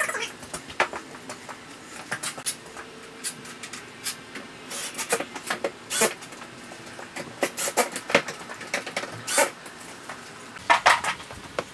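Hand screwdriver driving screws into a plastic storage box: irregular clicks, taps and creaks of the tool and the plastic panels. Near the end, a quick run of footsteps on a concrete floor.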